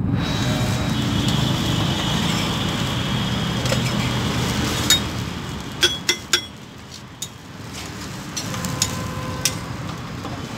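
A metal spatula clinks and scrapes a few times on an iron dosa griddle while a dosa is rolled and lifted off, about five to six and a half seconds in. Under it is a steady rumble of street traffic, which drops off after the clinks.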